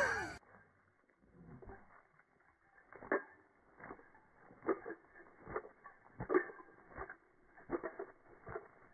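A dog shaking its head, its ears flapping and slapping in a run of short creaky claps, roughly one a second.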